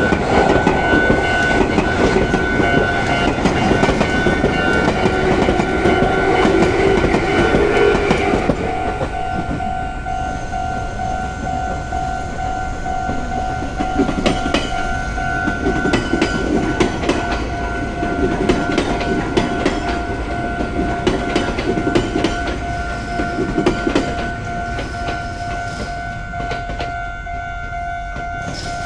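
Japanese level-crossing warning bell ringing its steady "kan-kan" tone while a Nagoya Railroad train passes, wheels clattering and rumbling, loudest for the first eight seconds or so. After that the bell keeps ringing over fainter, uneven rumbling of train cars.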